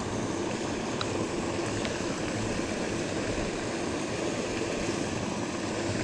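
Steady rush of water spilling from an outlet in a concrete check dam wall and splashing into the shallow pool below.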